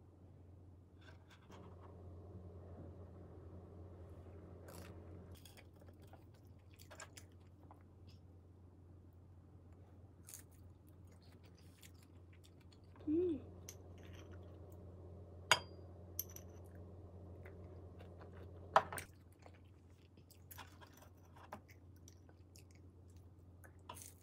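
Close-up eating sounds of fried rice-cake sticks: chewing with some crunch, and a few sharp clicks of a metal fork against the ceramic plate. A short pitched sound comes about halfway through, over a low steady hum.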